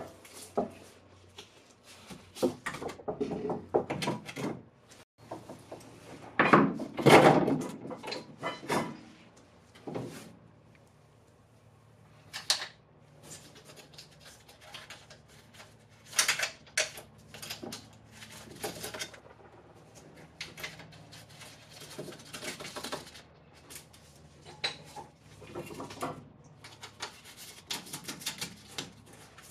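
Irregular clunks, knocks and scrapes of a front strut assembly being handled and fed up through the wheel well, with its top-mount nuts being started by hand.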